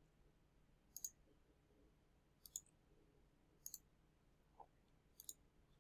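Faint computer mouse clicks: about four short, light clicks spaced a second or more apart over near silence.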